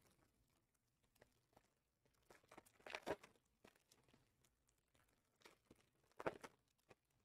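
Faint crinkling and light clicks of foil-wrapped Panini Mosaic trading-card packs being handled, in two short clusters: about three seconds in and again a little past six seconds, with near silence between.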